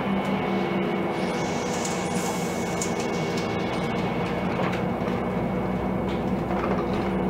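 Interior sound of a Volvo 7000A natural-gas articulated city bus under way: a steady engine drone with rolling road noise and a thin, steady high whine. A brief hiss comes about two seconds in.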